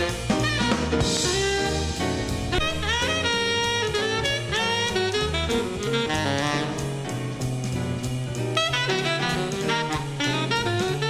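Big-band jazz with South African township rhythms, played from a vinyl record: horns playing lines of short, bending notes over bass and drums.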